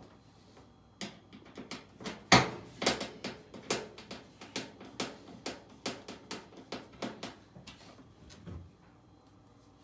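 Screwdriver and screws worked by hand at a front-loading washer's plastic door-lock housing: a run of irregular clicks and light knocks, the sharpest about two seconds in.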